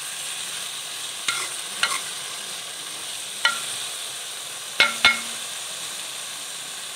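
Chicken pieces sizzling steadily in hot ghee in a steel karahi while a metal spoon stirs them, clanking against the pan about five times with a short metallic ring, the last two loudest and close together. The clanks stop after about five seconds and the sizzle carries on.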